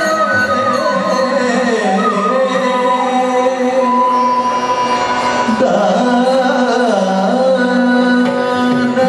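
Carnatic music accompanying a Bharatanatyam dance: a voice singing a slow melody with sliding, ornamented notes over a steady drone.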